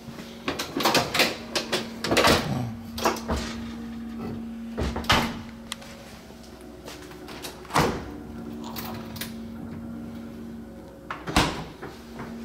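Kitchen cabinet doors opening and closing, making a run of knocks and clatters in the first couple of seconds, then single knocks a few seconds apart. A steady low hum runs underneath.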